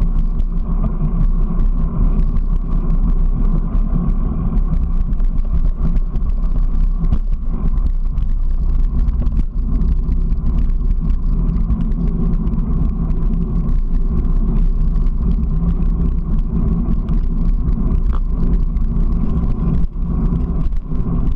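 Steady wind and rolling noise from a camera mounted on a moving vehicle travelling along pavement, with a constant low hum.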